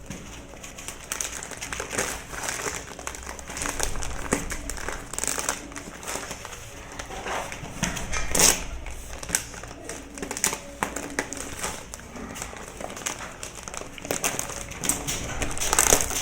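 Cardboard box being handled and opened: irregular rustling, crinkling and scraping of cardboard, with sharper cracks about eight seconds in and again near the end.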